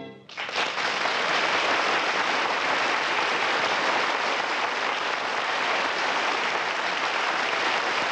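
Audience applauding steadily, starting just as a brassy music sting ends.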